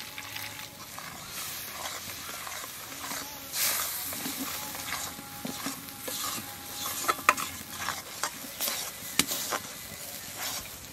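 Thick ground spice paste sizzling in a metal kadai while a flat metal spatula stirs and scrapes through it, with a few sharp knocks of the spatula on the pan. The masala is being fried down with a little water for dum aloo.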